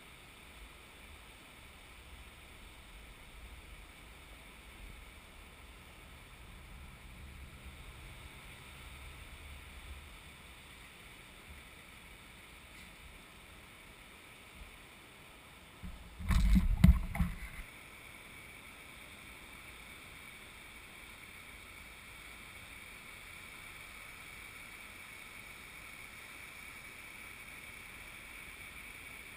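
Beach ambience: a steady faint hiss of surf and wind, with a loud low buffeting rumble from wind on the microphone lasting about a second and a half, a little past halfway through.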